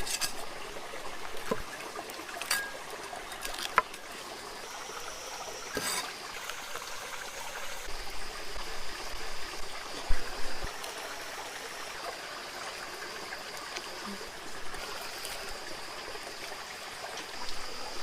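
Steady trickle of flowing water, with a few sharp clicks and a faint steady high tone running under it.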